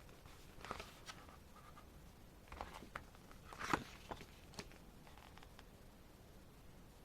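Faint paper handling: pages of an album's photo book being turned, a handful of short rustles with the loudest about halfway through.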